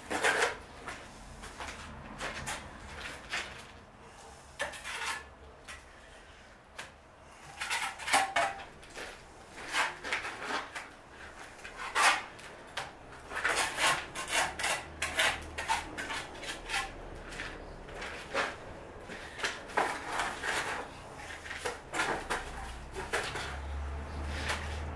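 Hand tools knocking and scraping on old brick and mortar: irregular taps and scrapes coming in uneven runs, some sharp knocks among them.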